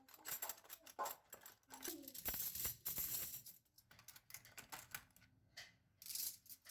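Small hard kitchen items clinking and clattering as they are handled and set down, a quick run of irregular clicks and knocks.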